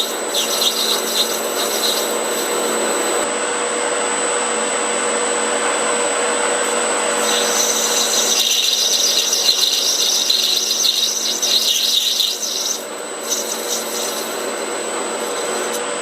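Metal lathe running under a cut, the tool scraping and hissing against the turning stock as chips come off. A brighter, higher hiss joins from about seven seconds in and drops away near thirteen seconds.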